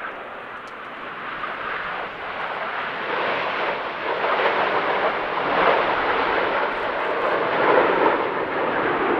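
Jet noise from Aermacchi MB-339 aircraft, a rushing noise from their Rolls-Royce Viper turbojets that grows steadily louder.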